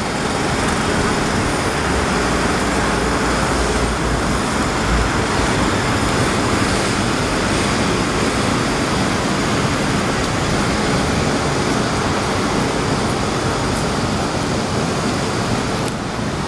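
Loud, steady construction-site noise: a constant, even wash of sound with a heavy low rumble in the first few seconds, dipping briefly near the end.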